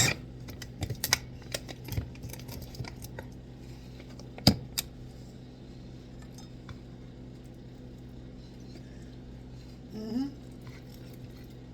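Light clicks and taps of kitchen utensils and containers being handled, bunched in the first few seconds, with one sharp click about four and a half seconds in. A low steady hum lies under it, and there is a brief murmur near the end.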